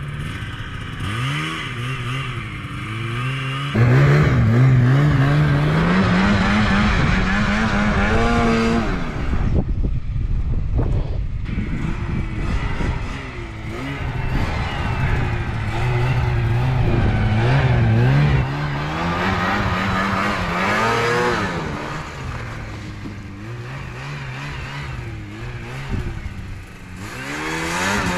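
Snowmobile engine revving up and down as the sled is ridden, its pitch climbing under throttle and dropping off several times. It eases off about nine seconds in, then revs up again.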